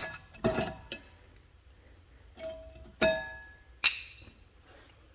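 Metal tools and brake parts clinking and tapping against each other: about five sharp, irregularly spaced metallic strikes, each with a short ringing tone.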